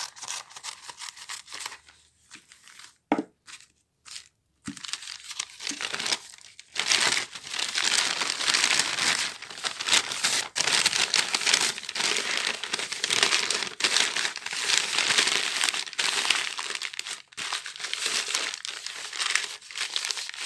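Brown paper bag being cut with scissors, with a couple of sharp snips in the first few seconds, then crumpled and wrapped tightly around a glass bottle: continuous rustling and crinkling of stiff paper from about six seconds in.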